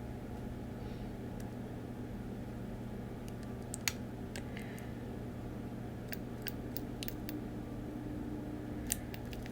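Faint, scattered light clicks and taps from a plastic Deco Rush tape applicator being handled and pressed onto a paper planner page, over a steady low hum.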